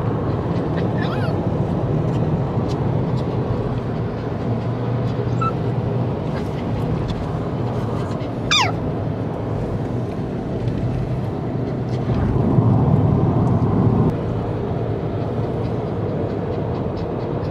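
Steady road and engine noise heard from inside a moving car at speed on a highway, swelling a little for a couple of seconds after the twelve-second mark. A single short, high squeak falls in pitch about eight and a half seconds in.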